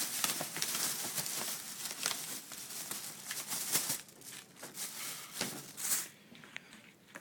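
Crinkling and rustling of firework packaging being handled, with many small clicks and knocks as the boxed cakes are picked up and moved, tapering off near the end.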